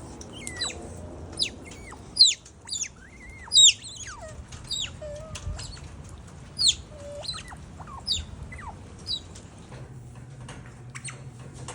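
Otter whining and chirping: a string of sharp, high-pitched squeaks that drop steeply in pitch, some sliding down into lower drawn-out whines, coming in irregular runs and dying away after about nine seconds.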